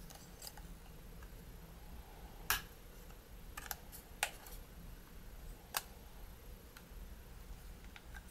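A handful of sharp, irregularly spaced clicks and taps from a Panasonic DMC-TS30 compact camera's body being handled and worked apart by hand, the loudest about two and a half seconds in.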